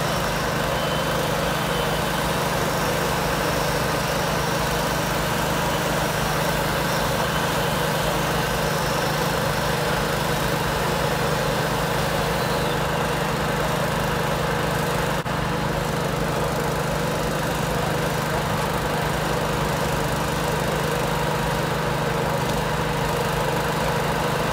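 Fire engine's diesel engine running steadily at idle, a constant even hum with no change in level.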